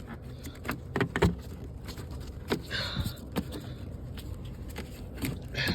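Handling noises as a car trim panel is worked loose and slid out: a scatter of short clicks and knocks, with a brief scraping rustle about three seconds in.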